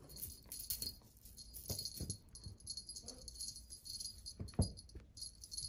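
Light, continual jingling and rattling of a cat wand toy being jiggled for Exotic Shorthair kittens, with a few soft thumps as the kittens pounce and tumble on a cloth-covered floor. The loudest thump comes about four and a half seconds in.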